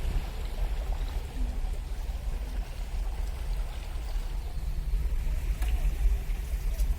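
Vehicle moving slowly through floodwater: a low, steady rumble with the noise of water around it.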